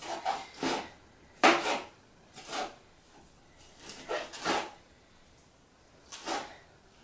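Chef's knife rough-chopping cooked chicken breast on a cutting board: irregular knocks of the blade on the board, some in quick pairs, the loudest about a second and a half in.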